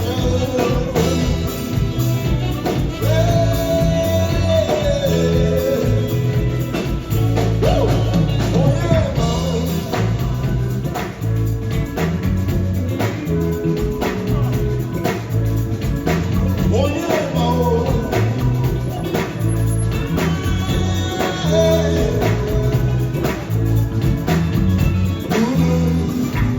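A live highlife band playing: guitar, bass and drums in a steady groove, with a voice singing lines now and then over the top.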